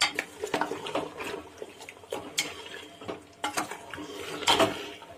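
Metal spoon stirring mutton, spice powder and ghee in a pressure cooker: irregular scrapes and knocks against the pot over a wet, squelchy mixing sound. The spoon catches on the marrow bones in the meat.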